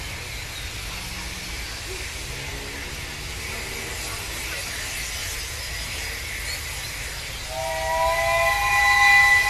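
Pacific-type steam locomotive with a steady low rumble and hiss. Near the end its steam whistle starts a long chime of several notes at once, getting louder.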